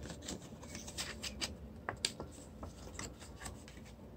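Green card paper being folded and creased by hand along its printed lines: soft rustling with a string of small crackles and ticks, the sharpest about halfway through.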